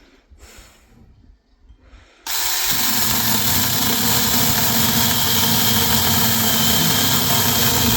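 Small battery-powered mini chainsaw starting up suddenly about two seconds in, then running steadily with a faint high whine as it cuts through wood.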